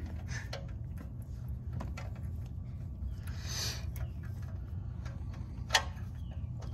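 Faint light clicks and ticks as the oil drain plug of a 2006 Acura TSX's oil pan is backed out of its threads by hand, over a steady low hum. A brief hiss comes about three and a half seconds in, and a sharper click near the end.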